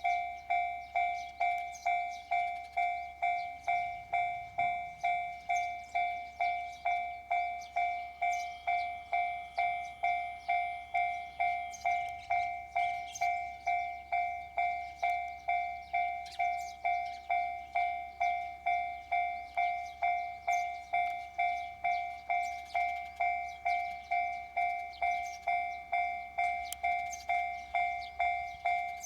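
Railway level crossing warning bell ringing steadily, a single-pitched ding repeating about three times every two seconds, each strike fading before the next.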